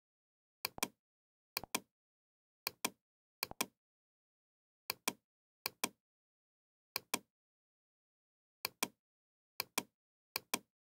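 Computer mouse button clicking, about ten times at irregular intervals, each click a quick double snap of press and release, with silence between.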